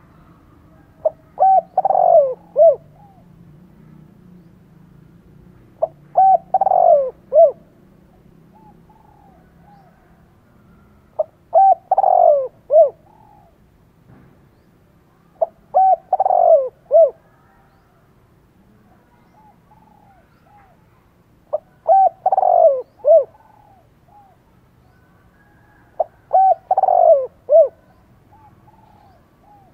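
Caged male spotted dove cooing: six phrases about five seconds apart, each a couple of short notes, a longer falling coo and a short closing note. This is a decoy bird's cooing, used to provoke and lure wild males.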